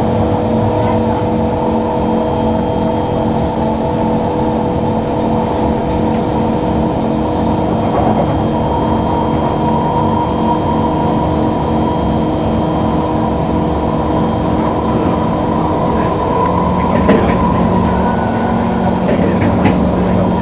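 Singapore MRT electric train running steadily, heard inside the carriage: a constant rolling rumble of wheels on rail with several held tones, and a couple of sharp clicks near the end.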